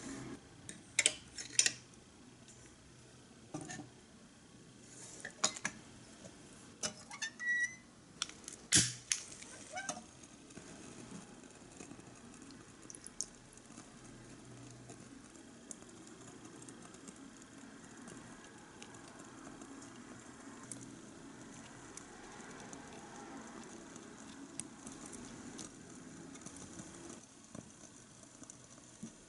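Small sharp clicks and knocks of a tiny ceramic pot and utensils being handled and set down on a miniature stove, several in the first ten seconds. Then a faint, steady hiss while water is poured into the pot.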